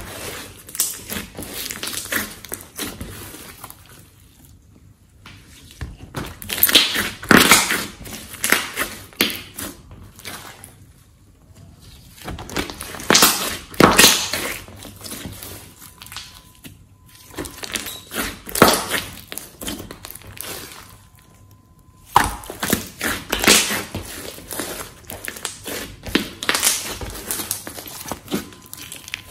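Hands squishing, folding and pressing a large lump of glossy slime, making wet squelches and crackling clicks in bursts every few seconds, with quieter gaps between.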